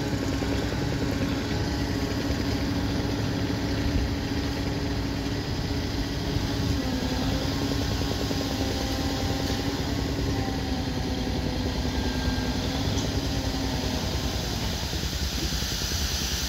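Dump truck's diesel engine running steadily while it raises its tipper body to unload soil, with a steady hum over the engine that stops near the end.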